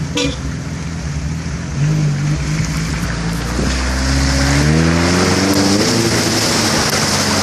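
A 4x4's engine running steadily, then revving up with a rising pitch from about halfway as it pulls forward along a flooded, muddy track. A hiss of tyres through water grows louder as it moves.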